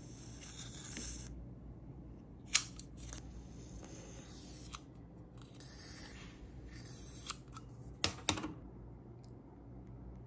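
Sharp clicks of a long-necked candle lighter being worked to light jar candles, the loudest about two and a half seconds in and a quick cluster near the end, with a soft hiss between.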